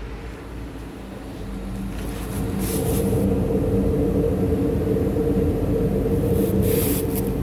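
2000 Jaguar S-Type's 4.0-litre V8 engine running, getting louder over the first few seconds and then holding steady.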